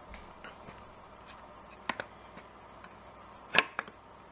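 Scattered light clicks from a Sur Ron's drive chain as it is handled and moved over its sprocket, with one sharper click about three and a half seconds in. The chain is fitted to a new 60-tooth rear sprocket and was just described as clicking.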